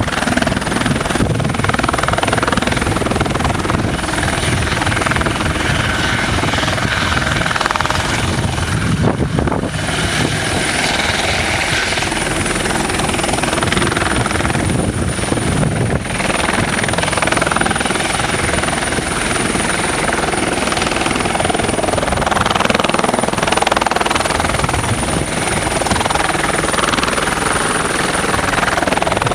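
Eurocopter EC120 Colibri helicopter hovering close to the ground and slowly turning in place, its rotor and turbine running steadily and loudly.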